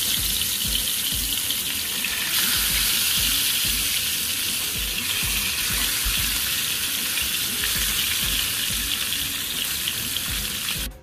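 Hot oil sizzling steadily in a frying pan as fish fries. The sizzle grows louder about two seconds in and cuts off suddenly near the end.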